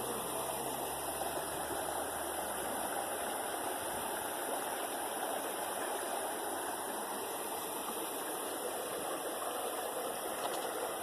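Steady rushing of running water from a stream, with a faint low hum underneath that fades out about three seconds in.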